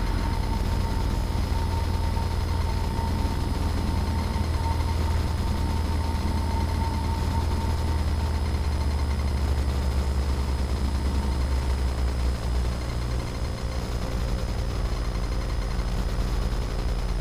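Cessna 172P Skyhawk's four-cylinder Lycoming engine running at low power, heard inside the cabin through touchdown and the landing roll. The steady low drone eases about twelve seconds in.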